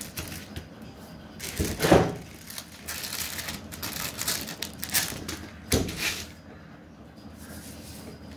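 Paper and plastic packaging of a credit card mailer rustling and crinkling as it is handled and opened, in several short bursts, the loudest about two seconds in, quieter over the last two seconds.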